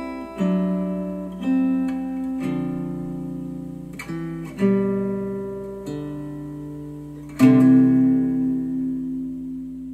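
Acoustic guitar music played back through Monitor Audio Bronze 100 bookshelf speakers: strummed chords struck one at a time and left to ring and fade, the last and loudest about seven seconds in.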